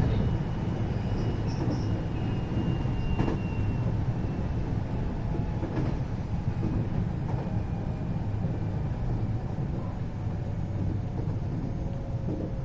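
Interior running sound of a 521 series electric train, recorded inside motor car KuMoHa 521-30: a steady rumble of wheels and motors at speed. A faint high whine fades out in the first few seconds, and a couple of faint clicks come through.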